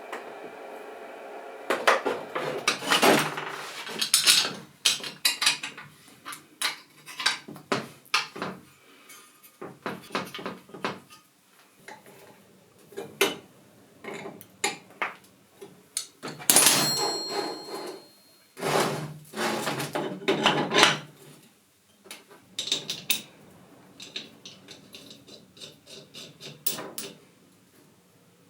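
Hard objects, metal among them, handled and set down: repeated clinks, knocks and scrapes at irregular intervals. A steady hum runs for the first couple of seconds, and one short ringing tone comes about two thirds of the way through.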